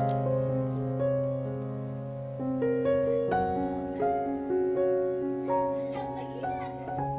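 Background music: a solo piano playing a slow melody over long held bass notes.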